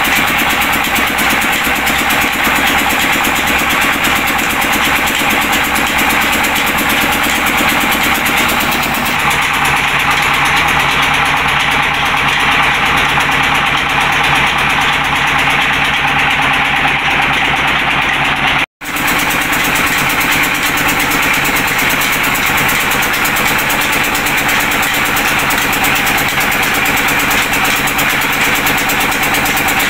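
Single-cylinder stationary diesel engine running steadily, driving a stone flour mill by a long flat belt, with the mill grinding. The sound cuts out for an instant about 19 seconds in.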